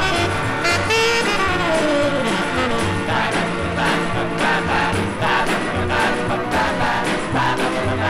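Pop song playing from a 45 rpm vinyl single: a passage with a steady, pulsing bass and a long falling glide in pitch over roughly the first two seconds.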